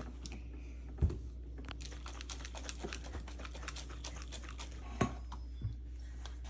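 Jar of overnight oats being shaken and handled: a run of light, irregular clicks and rattles, with two louder knocks about a second in and about five seconds in.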